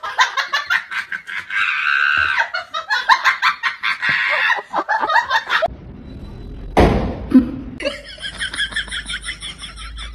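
Loud human laughter in quick repeated pulses for the first five and a half seconds. Then a sudden thump about seven seconds in, followed by a drawn-out, wavering high-pitched sound to the end.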